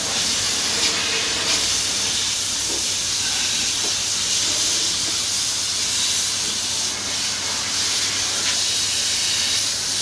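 High-pressure water spraying from an underbody washer lancer, a wheeled frame of nozzles pushed under a car, making a steady hiss against the car's underside.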